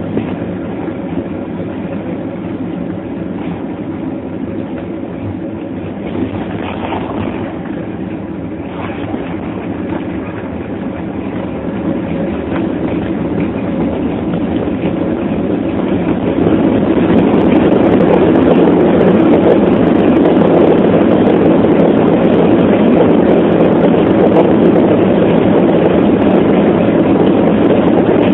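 Airliner's jet engines and rushing airflow heard from inside the passenger cabin during landing. The noise grows louder from about ten seconds in and jumps about 16 seconds in, then stays loud and steady, a jump typical of reverse thrust after touchdown.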